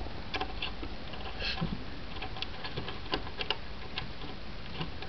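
Small irregular clicks and ticks as fingers turn and seat the nuts of a CPU cooler's mounting bracket on a motherboard.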